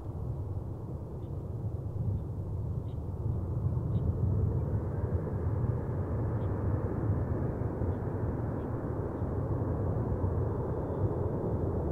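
Jet airliner engines rumbling at a distance, growing louder about four seconds in and then holding steady.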